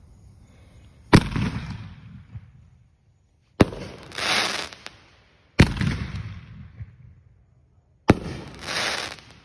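Consumer aerial fireworks going off: four sharp bangs about two to two and a half seconds apart, each trailed by a hissing crackle that dies away over a second or so. After the second and fourth bangs the crackle swells up again before fading.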